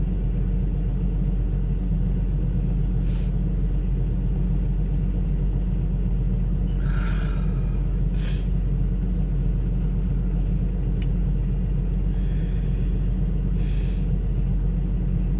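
Steady low rumble of the truck's diesel engine running, heard inside the sleeper cab. Over it come a few short sniffs and a breathy exhale from someone crying and wiping their nose with a tissue.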